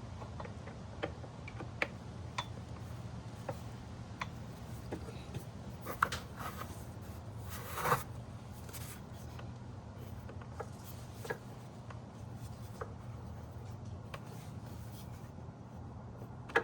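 Scattered light clicks and taps of hand tools on metal while a motorcycle's rear brake line is refitted, with a brief scrape about eight seconds in, over a steady low hum.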